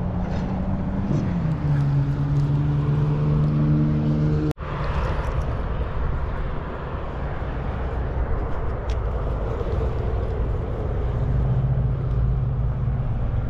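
Steady low rumbling noise with a droning, engine-like hum that slides down in pitch about a second in and holds steady. The sound cuts out abruptly for an instant about four and a half seconds in, and the hum comes back faintly near the end.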